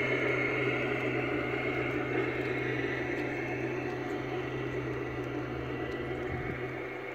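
G-scale LGB model train, a long rake of coaches, rolling past on garden-railway track: a steady rumble of wheels on rail with a motor hum, slowly fading as the last coaches go by.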